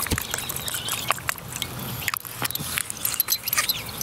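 Tamari pouring from an upside-down bottle into a glass bowl of oil, with scattered small clicks and knocks as the bottles are handled.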